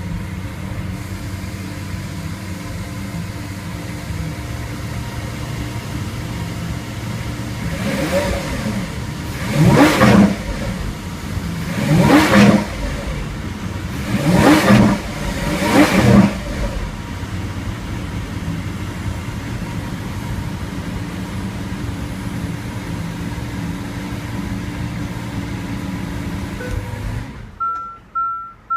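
Lamborghini Aventador's 6.5-litre naturally aspirated V12 idling after start-up, then revved in four short blips about two seconds apart before settling back to idle. Near the end the engine shuts off abruptly and a high electronic beep repeats several times.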